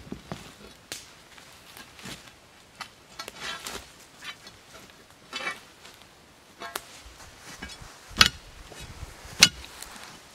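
Shovel blade jabbing and chopping into root-filled forest soil, a series of separate strikes about a second apart, the two near the end the sharpest and loudest.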